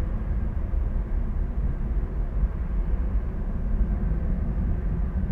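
Airbus A320-232 airliner's IAE V2500 turbofan engines running at low power while it taxis on the runway: a steady, distant low rumble with no rise in pitch.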